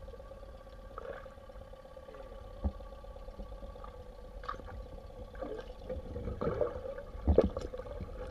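Muffled water sounds heard from underwater through a submerged camera: a steady hum with scattered knocks, then louder sloshing and knocks from about six seconds in as a pike is scooped into a landing net.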